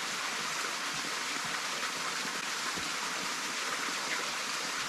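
Creek water running over rocks and ice, a steady rushing hiss.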